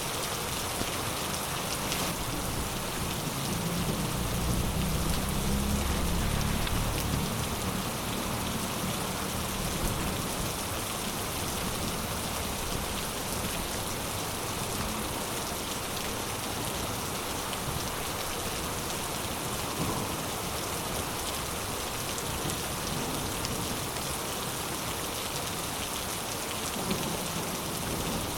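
Heavy rain falling steadily, with a low rumble of thunder swelling and fading from about three to eight seconds in.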